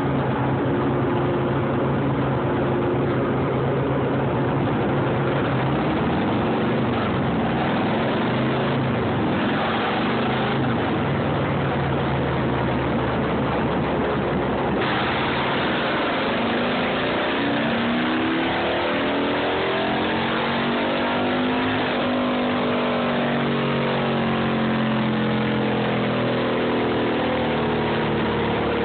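Harley-Davidson V-twin engine running on a chassis dyno. It holds a steady speed at first, then past the middle the revs climb for about six seconds in a dyno pull and fall away again near the end.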